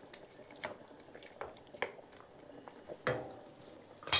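Wooden spoon stirring a chunky meat and sauerkraut stew in a stainless steel pan: soft wet stirring with a few scattered taps of the spoon on the pan, the sharpest knock near the end.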